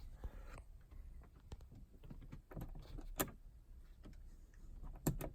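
Scattered handling clicks, taps and knocks, with a sharp click about three seconds in and a quick double click near the end.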